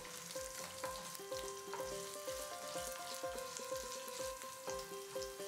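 Cashew nuts, green chilies and mustard seeds sizzling in hot oil in a kadai, stirred with a wooden spatula that knocks softly and regularly against the pan. Soft background music with held notes plays along.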